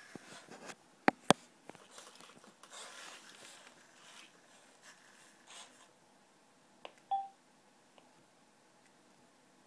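Two sharp clicks close together about a second in, then light handling rustle, and a short single-pitched electronic beep about seven seconds in.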